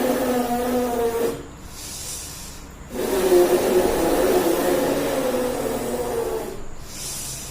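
A person's long, wheezy breaths blown out hard, each lasting about three and a half seconds with a hoarse, wavering tone over a hiss, broken by a quieter gap of about a second and a half after the first one and again near the end.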